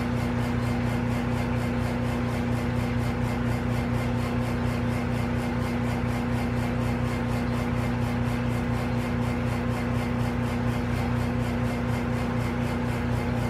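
Vacuum investing machine's pump running with a steady hum, drawing a vacuum on plaster investment under a bell jar to degas it until the mix comes to a rolling bubble.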